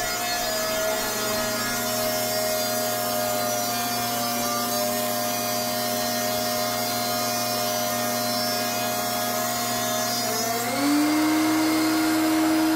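DeWalt thickness planer running, surfacing a maple board, a steady machine whine over cutting noise. Near the end its pitch steps up and it gets a little louder.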